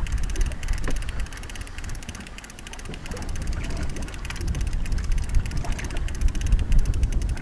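Wind buffeting the microphone on an open boat, with the fast, even ticking of a fishing reel being wound in.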